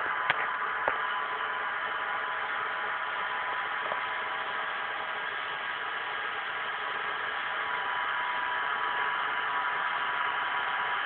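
Small electric motors in 1/72 scale Airfix model aircraft spinning their propellers: a steady whir with a faint thin whine, with two sharp clicks in the first second.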